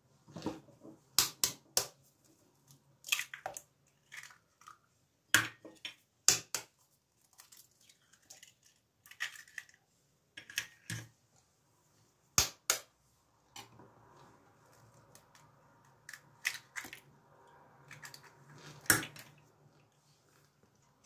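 Eggs being cracked one after another on the rim of a plastic bowl: a series of sharp cracks and taps of eggshell, with shells knocked and set down between them.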